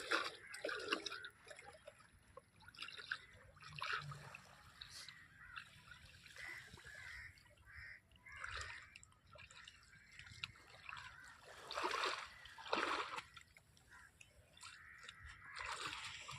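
Shallow seawater splashing and trickling in irregular bursts, with two louder splashes about twelve and thirteen seconds in.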